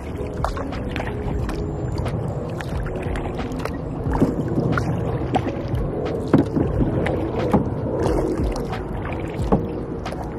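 A plastic kayak being paddled: paddle strokes splash and water sloshes against the hull, with a few sharp knocks in the second half.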